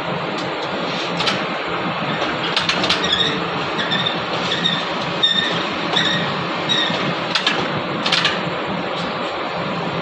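Electric hoist motors of a suspended construction gondola running steadily as the platform is raised on its wire ropes, with a low hum. A high squeak repeats about every half second through the middle, and there are a few sharp clicks.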